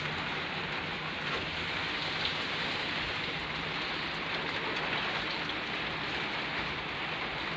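Rain falling steadily on the roof of a box truck, heard from inside the box: an even hiss with scattered faint drop ticks.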